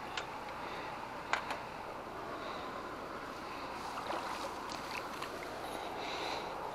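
Steady wash of water and wind at the breakwater, with a few sharp clicks in the first couple of seconds.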